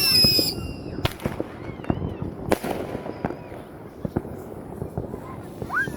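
Fireworks going off: a falling whistle ends about half a second in, followed by two sharp bangs about one and two and a half seconds in, with scattered crackling pops throughout.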